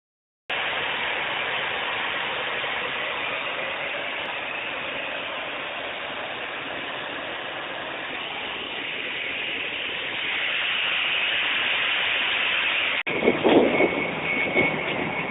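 Steady engine noise of airport ramp traffic. About thirteen seconds in, after a sudden cut, it turns louder and uneven, and a high steady whine joins it, as from a taxiing jet airliner's engines.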